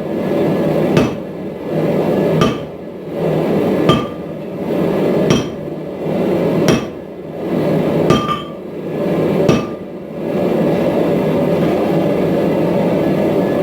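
Hammer blows on hot steel at an anvil while forging a billet: seven heavy strikes about one every second and a half, each with a short metallic ring. The strikes stop about ten seconds in, leaving a steady rushing noise that runs under them throughout.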